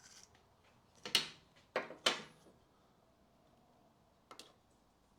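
Anti-rattle shims being unclipped from a brake pad: three sharp clicks in quick succession about a second in, then one fainter click near the end.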